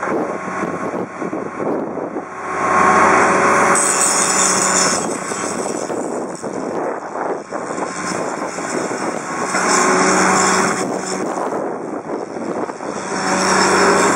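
Fiat-Hitachi FH200W.3 wheeled excavator's diesel engine running steadily, loading up and getting louder three times as the hydraulics raise and swing the boom, arm and bucket.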